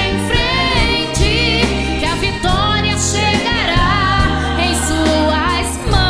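A woman singing a Christian worship song into a microphone over an instrumental backing track, her voice sliding and wavering through long held notes.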